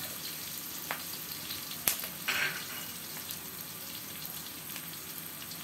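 Sliced shallots, garlic, galangal and ginger sizzling in oil in a wok, a steady soft hiss. Two sharp clicks of the metal spatula against the wok come about one and two seconds in, followed by a brief scrape.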